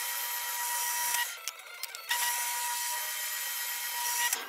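Small electric drill with a fine twist bit whining at high speed as it bores through a thin brass plate. It stops for about a second a little past one second in, then runs again and stops near the end.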